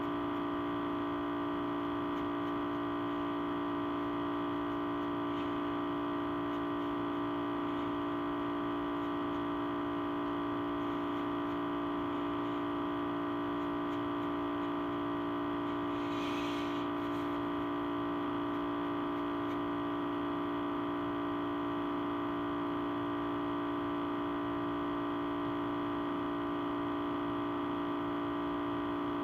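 Sustained audio feedback: several held tones at once, the strongest a low hum, steady and unchanging. A brief hiss comes about sixteen seconds in.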